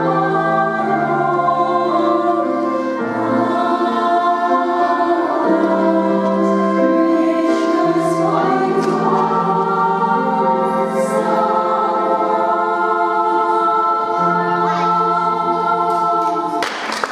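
Church choir singing sustained chords in several parts, with low voices beneath the higher ones. Right at the end the singing stops and applause breaks out.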